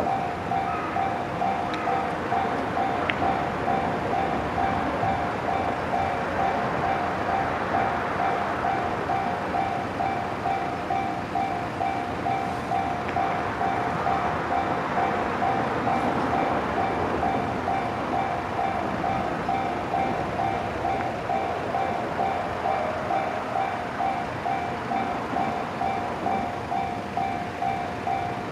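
Japanese level-crossing warning bell ringing steadily in even, repeating strokes, while an electric train runs over the crossing with a continuous rumble of wheels on rail that swells and fades.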